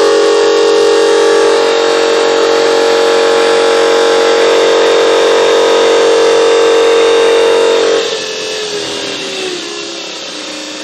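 Watersnake T18 electric trolling motor running with its propeller in open air, a loud steady whine. About eight seconds in it is turned down on its PWM speed dial: the whine gets quieter and its pitch slides down as the motor slows.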